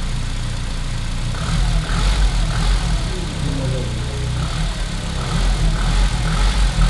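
E30 BMW M3 engine running at idle on its first run in a year after a full restoration, a steady low rumble that swells a little about two seconds in and again near the end.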